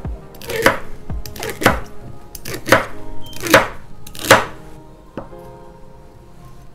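A kitchen knife chopping a celery stalk on a wooden cutting board: about six separate cuts, each ending in a knock on the board, over the first four and a half seconds, then quieter. Soft background music underneath.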